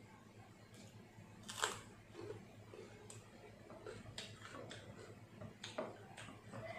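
Close eating sounds of someone chewing a mouthful of rice and fish: scattered mouth clicks and smacks, the loudest about one and a half seconds in.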